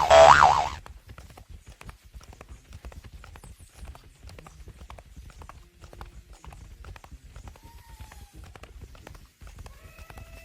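Stampede sound effect: a dense, rapid patter of many hoofbeats that runs on without a break. It opens with the tail of a loud, wavering animal call, and a fainter call comes near the end.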